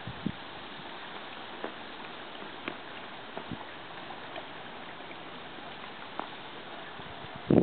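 Steady riverside outdoor ambience: an even hiss with a few faint, scattered clicks. A loud rush begins right at the very end.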